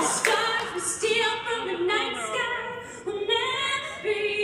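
A woman singing long, held notes that glide up and down, with no instruments standing out.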